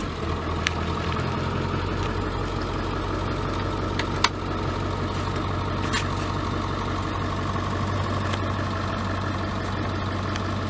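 2003 Ford Super Duty's 7.3-litre Power Stroke turbo-diesel V8 idling steadily just after starting, with a few sharp clicks over it.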